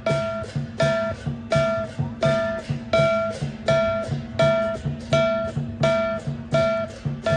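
Music: a repeating plucked-string melody, struck about one and a half times a second over a steady low drone and beat.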